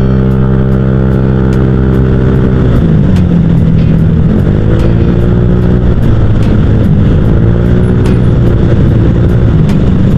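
Honda Vario 150 scooter's single-cylinder engine running through an aftermarket ZRC 'copy CMS' exhaust while riding under throttle. The engine note holds and climbs slightly, drops sharply about three seconds in as the throttle comes off, then rises and falls twice more.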